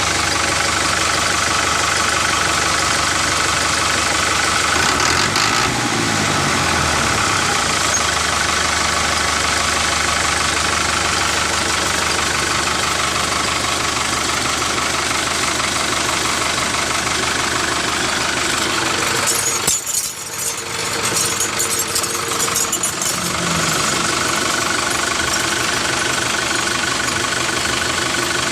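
A tractor engine running steadily at idle with a knocking beat, briefly dipping about twenty seconds in with a crackle.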